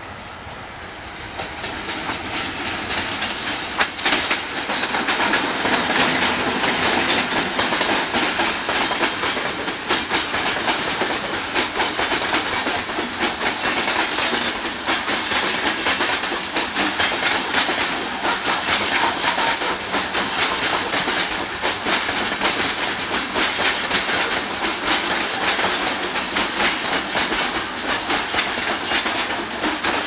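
An ALCo RSD16 diesel locomotive hauling a loaded coal train approaches and passes, growing louder over the first few seconds. Then a long string of loaded coal wagons rolls by steadily, their wheels clacking over the rail joints.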